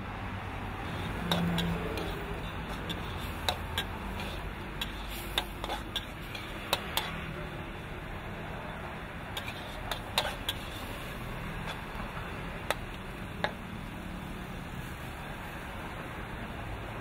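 A metal wok spatula scraping and knocking against a steel wok as minced pork and chillies are stir-fried, giving irregular sharp clinks and taps. A steady low rushing noise runs underneath.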